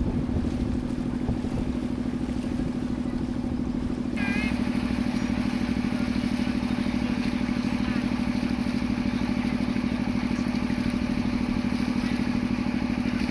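A river motorboat's engine running steadily, a strong low hum with a fast even chugging pulse, getting slightly louder and brighter about four seconds in.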